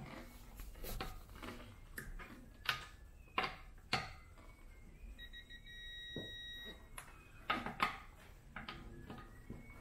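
Digital torque wrench tightening a car's wheel nuts: a series of sharp clicks and knocks from the socket and wrench, then a steady electronic beep lasting under two seconds about halfway through, the wrench signalling that the set torque has been reached.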